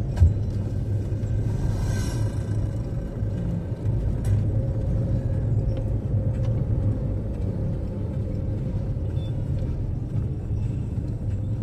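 A 2018 Suzuki Karimun Wagon R GL driving along, its engine and tyres making a steady low rumble, with one short knock just after the start.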